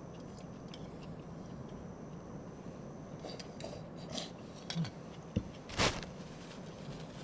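Chopsticks clicking and scraping in a metal camping mug while eating from it, then the mug set down on a table and a tissue pulled from its box. The loudest noise is a short, sharp one near the end.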